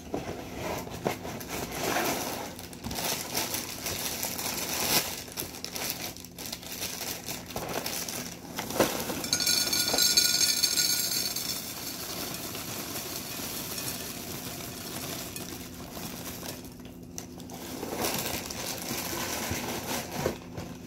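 Plastic liner bag of a cereal box crinkling as it is opened and handled, with dry Honey Nut Cheerios pouring from the bag into a bowl about nine to twelve seconds in.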